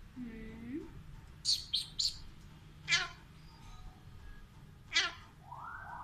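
Alexandrine parakeet calling: a low curved note at the start, a quick run of short high squawks about a second and a half in, then two sharp calls that sweep down in pitch, about two seconds apart, and a rising call near the end.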